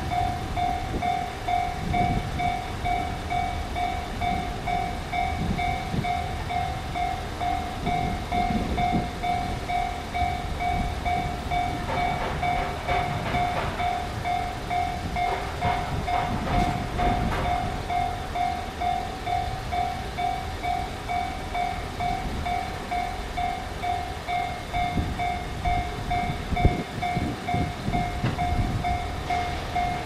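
Japanese level-crossing warning bell ringing, an even, rapidly repeating electronic ding over a low rumble, with a stretch of clattering about midway.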